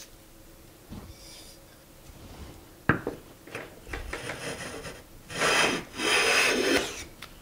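Hand bench plane (Harbor Freight No 33) taking shavings off the edge of a poplar board, its freshly sharpened blade cutting wood. A sharp knock about three seconds in, then a few lighter strokes and two loud scraping strokes near the end.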